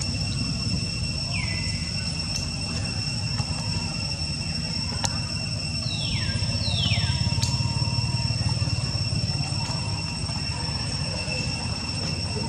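Outdoor background noise: a steady low rumble under constant high, thin whining tones, with three short falling whistle-like calls, one about a second and a half in and two close together around six to seven seconds in.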